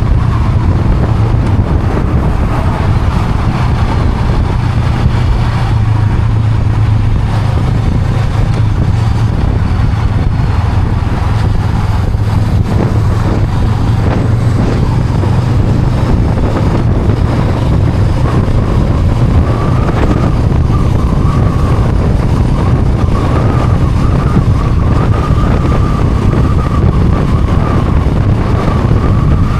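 Honda Rebel 500's parallel-twin engine running steadily while riding, with road and wind noise. Past the middle, a faint wavering high tone joins in.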